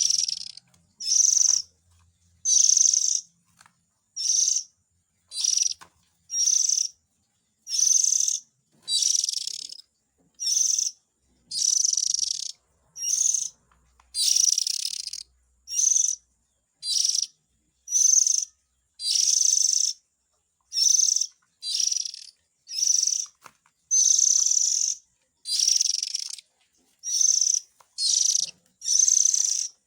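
Oriental magpie-robin calls played as a bird-trapping lure: short scratchy high calls, about one a second, each separated by a brief silent gap.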